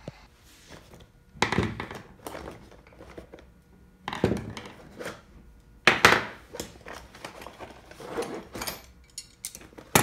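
Metal hand tools, screwdrivers and pliers, being set down one after another on a wooden workbench: a series of separate clattering knocks every second or two, the loudest about six seconds in.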